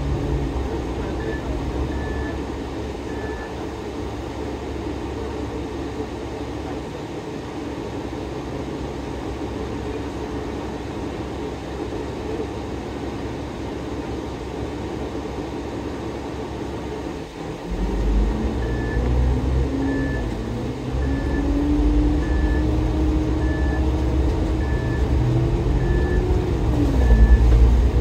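Diesel engine of a GO Transit coach bus idling, then revving up about two-thirds of the way through as the bus pulls away, its pitch climbing, dropping once at a gear change and climbing again. A short high beep repeats about once a second briefly near the start and again through the pull-away.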